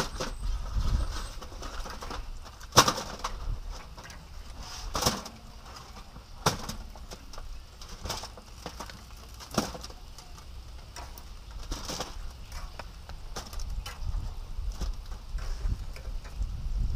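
Metal grill tongs clicking against the cast grate and foil pan as chicken wings are picked up and moved, a sharp click every couple of seconds with the loudest about three seconds in, over a steady low rumble.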